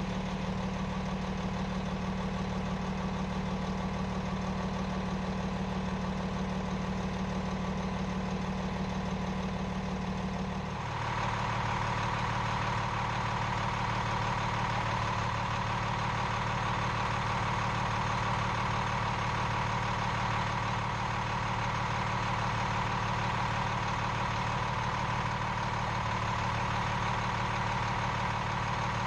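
A steady machine hum from the parked motorhome, the kind of running engine or motor that powers its leveling system. About eleven seconds in it changes to a louder hum with a different pitch.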